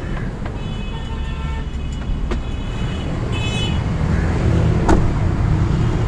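Motor vehicle engine running as a steady low rumble, with two short horn-like tones, the first about half a second in and the second about three seconds in, and a couple of sharp clicks.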